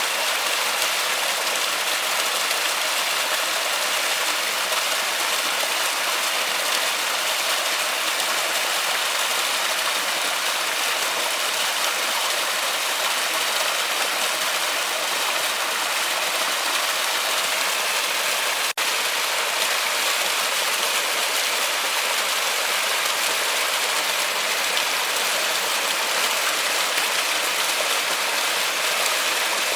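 Forest waterfall: a steady, even rush of falling water, broken by one split-second dropout about two-thirds of the way through.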